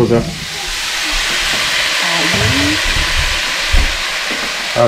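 Cubed raw potatoes dropped into a pan of hot oil and onion-spice masala, setting off a loud, steady sizzle that builds over the first second. There are a few low knocks later on.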